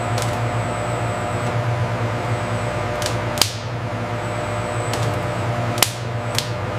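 Large industrial mixer running with a steady low mechanical hum, broken by a few sharp clicks about three seconds in and again near six seconds.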